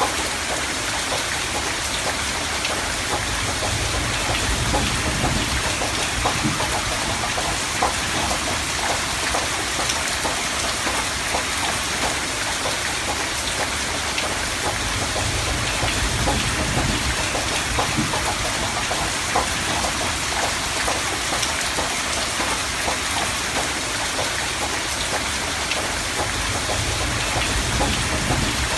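Steady heavy rain pattering on surfaces, with the low rumble of distant thunder swelling up a few times.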